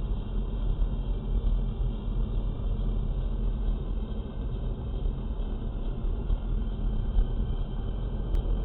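Steady low rumble of road and engine noise inside a moving car's cabin, cruising at a constant pace.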